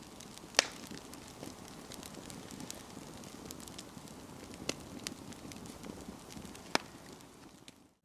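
Wood fire crackling, with a soft hiss and three sharp pops of burning firewood, about half a second in, past the middle and near the end.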